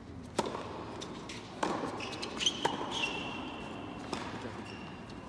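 Tennis rally: a serve struck about half a second in, then several more sharp ball strikes off the rackets, with short high squeaks of shoes on the hard court in the middle of the rally.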